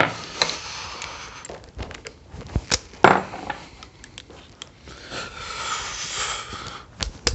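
Workshop handling noise: scattered clicks and knocks of small metal parts and tools being picked up and set down, loudest about three seconds in, with a rustling scrape from about five to six and a half seconds in.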